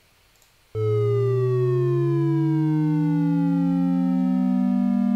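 Two synthesized oscillator tones start sharply about a second in. One glides up from a low pitch and the other glides down from a higher one. Both change quickly at first, then more and more slowly as they close in on the same pitch near the end.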